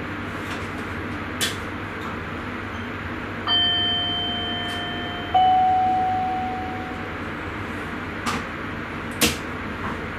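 Steady running noise inside a Sprinter train's driver's cab, with a two-note electronic chime about three and a half seconds in: a held first tone, then a slightly higher second tone that rings out and fades. A few short sharp clicks come and go.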